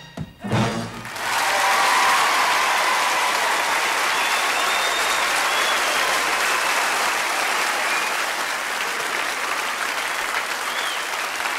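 A large audience applauding, with a few whistles. The clapping comes in about a second in, after a couple of low thumps, and holds steady.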